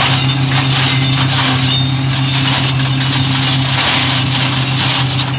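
New Holland TT50B tractor engine running steadily under load while its rear-mounted flail shredder spins and chops pruned vine canes. A steady low hum sits under a dense, rough noise of cane being shredded, with irregular sharp clatters.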